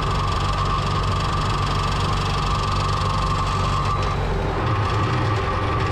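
Tractor engine running steadily. A steady whine runs alongside it and stops a little over four seconds in, and the engine note shifts just after.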